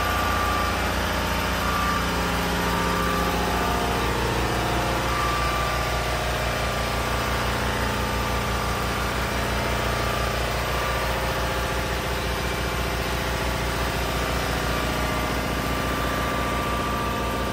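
Engine-driven compressor package running steadily inside its metal enclosure: the engine's even, rapid low pulsing with the compressor and piping, and a faint high whine that comes and goes.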